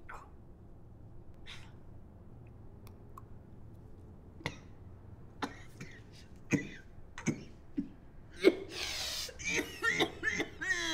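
A person's non-speech vocal noises: scattered short gasps, coughs and throat sounds, then a loud breathy burst about eight and a half seconds in and strained vocal sounds with sliding pitch near the end.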